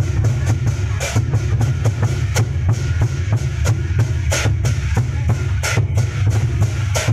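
Lion dance percussion: a large drum beaten in a fast, steady stream of strokes, with a bright cymbal crash every second or two.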